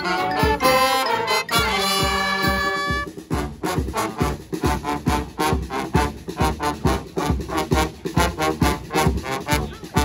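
Street brass band playing live: saxophones, trombones, trumpets and sousaphone over a drum kit. The horns hold a long chord for about the first three seconds, then the music drops to a steady, quick drum beat with shorter horn notes.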